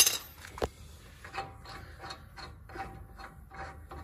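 A few sharp metal clicks as the tool comes off, then a wheel nut being spun back off a newly fitted wheel stud by hand, its threads rasping in short strokes about three times a second.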